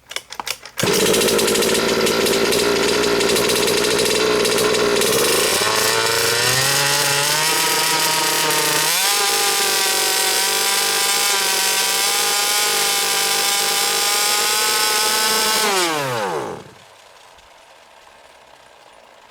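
The two-stroke gas engine of a 1/5-scale HPI Baja 5B RC buggy runs at high revs, climbing in pitch twice. About 16 seconds in it winds down and dies: the remote kill switch has shut it off after the radio signal was cut.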